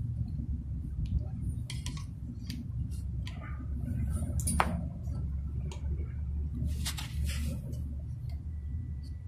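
Handling noise: scattered clicks and taps of a solar panel's cable and a plastic solar floodlight being moved about by hand, over a steady low rumble.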